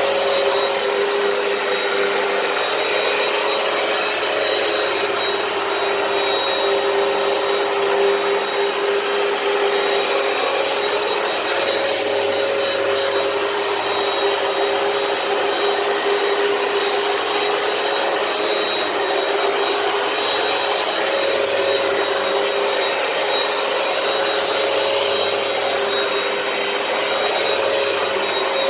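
Hoover PowerDash carpet cleaner running steadily with a motor whine, sucking up cleaning solution from the carpet.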